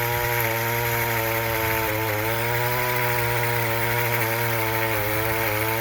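Echo power pruner's two-stroke engine running at high throttle as its chainsaw attachment cuts through a thick tree limb. The engine pitch sags briefly about two seconds in and again near the end as the chain bites.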